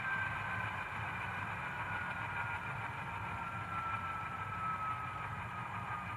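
Simulated GE diesel engine sound from the HO scale Dash9-44CW model's LokSound 5 decoder, played through the model's small speaker and running steadily just after the throttle has been turned down to zero. A faint whine slowly falls in pitch throughout.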